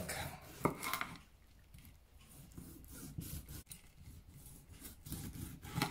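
Chef's knife slicing through dried biltong on a wooden cutting board, the blade rasping through the hard, dry meat and scraping the board. There are a couple of sharp knocks of the blade on the wood about a second in.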